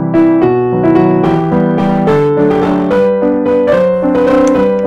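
Background music played on piano: notes struck one after another and left to ring, several sounding together.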